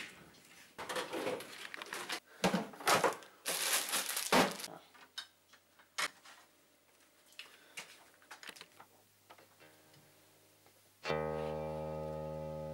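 Kitchen handling sounds of making a sandwich: a cabinet door, rustling of a plastic bread bag and clinks of plates on a metal tray. About eleven seconds in, music begins with a sustained plucked-string chord.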